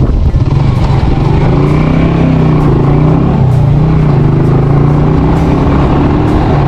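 Small motorcycle's engine running at a steady pace while riding over a rough gravel dirt track, with wind rushing over the microphone.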